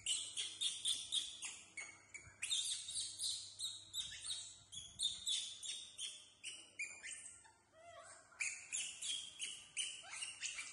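Rapid high-pitched chirping calls, several a second, with a few short pauses.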